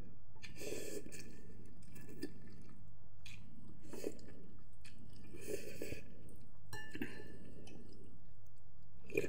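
A person chewing a mouthful of boiled instant noodles close to the microphone, in short, irregular wet mouth sounds about every second, over a faint steady low hum.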